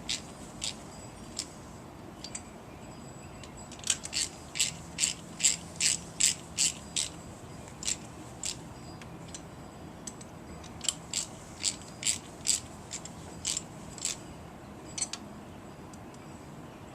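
Ratchet wrench clicking in short runs of about three or four clicks a second, with pauses between the runs, as spark plugs are snugged down.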